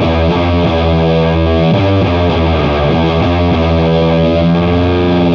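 Heavily distorted electric guitar playing a slow doom metal riff in E minor Phrygian, through a parallel blend of a Sabbathi octave-up fuzz and a Doomsaw HM-2 style chainsaw distortion. Long held low notes, with a run of quicker notes in the middle.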